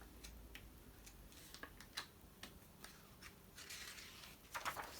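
Faint handling noise: a few light clicks scattered through, and a short rustle a little after three and a half seconds in.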